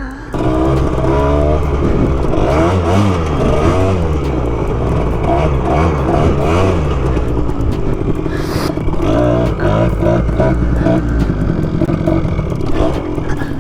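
Yamaha YT175 Trimoto's two-stroke engine being ridden hard, its revs climbing and dropping again and again as the throttle is worked. The wheels are on ice without studs.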